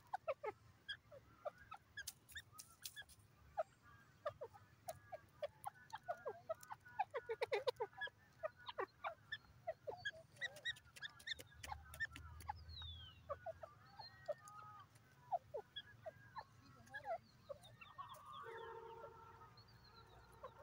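Grey francolin foraging: a faint, busy patter of short soft chirps and clicks as it pecks at the soil. Near the end, a steady, held tone of several pitches comes in.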